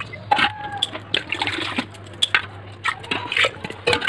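Soaked lentils being tipped from a metal bowl into water in an aluminium pressure cooker: irregular splashing and sloshing, with short clinks and scrapes of metal on metal.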